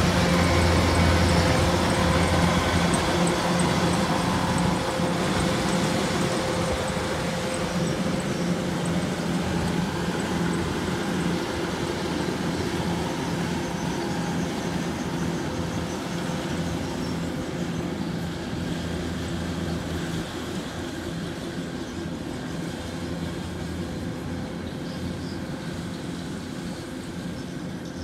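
Kubota DC105X combine harvester running steadily under load while harvesting rice: an even diesel engine hum over the clatter of the threshing machinery. It is loudest at first and fades gradually as the machine moves away.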